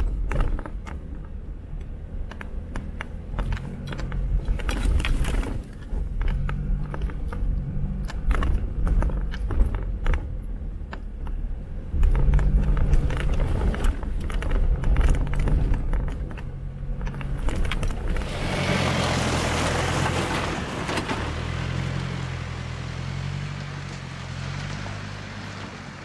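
Jeep Wrangler driving over a rough off-road track: the engine runs under changing load, with frequent knocks and rattles. About two-thirds of the way through there are a few seconds of loud rushing noise.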